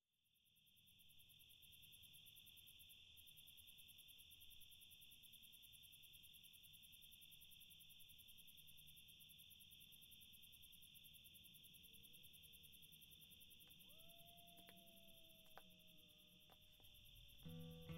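Crickets chirping steadily in a quiet night ambience, fading in at the start, with a few faint clicks and a soft wavering tone near the end.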